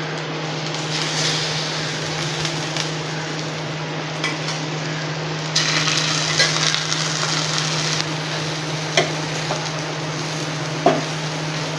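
Egg-dipped bread slice frying in oil on a hot dosa griddle, a steady sizzle that grows louder for a couple of seconds about halfway through, with a few light taps of a spatula on the griddle. A steady low hum runs underneath.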